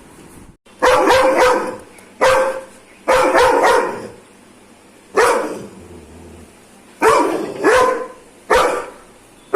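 Doberman barking aggressively in short, loud bouts, about seven of them with brief pauses between.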